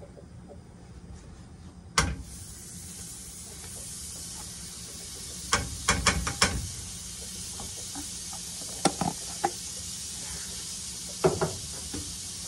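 Margarine sizzling in a hot pan: a sharp knock about two seconds in, then a steady high sizzle of frying fat. A quick cluster of sharp taps comes around the middle, and single knocks come near the end.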